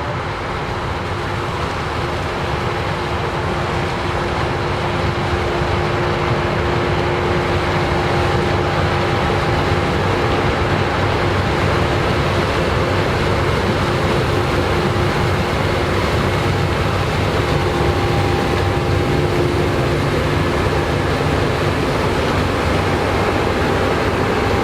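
Combine harvester harvesting corn: dense, steady machine noise with a steady whine, growing louder over the first several seconds as it comes closer, then holding.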